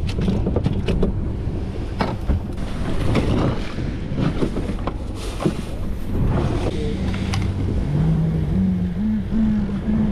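Steady low rumble of wind on the microphone and sea water around a small fishing boat, with scattered clicks and knocks from handling a caught fish and gear on the deck.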